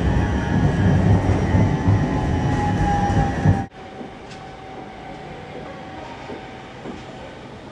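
Driverless Copenhagen Metro train (AnsaldoBreda Driverless Metro) heard from inside the car while running: a loud rumble with a motor whine sliding slightly lower. Partway through it cuts suddenly to a much quieter, distant running sound of a metro train approaching along the track.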